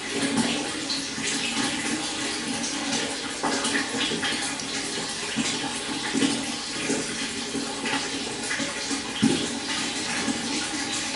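Shallow stream running and burbling, a steady rush of water broken by many small irregular splashes and trickles.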